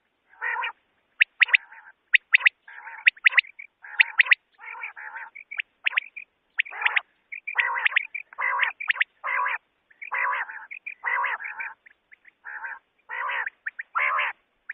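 Quail calling on a hunting lure recording: clusters of sharp, high whistled notes alternate with harsher, raspy notes, about two calls a second and with no pause.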